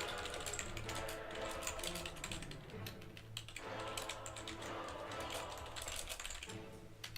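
Computer keyboard being typed on in quick, irregular clicks, over background music.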